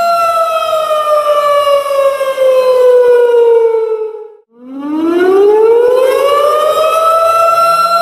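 Tornado warning siren sounding a steady tone that slowly falls in pitch and dies away about four and a half seconds in. It then climbs back up to its full pitch within about two seconds and holds steady.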